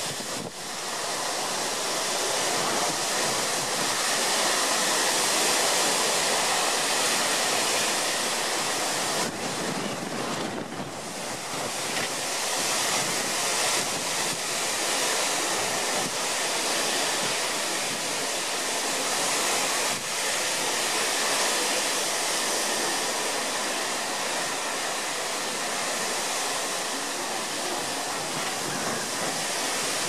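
Strong storm wind blowing through oak trees, a steady rushing noise that swells in the first second and eases slightly about ten seconds in before picking up again.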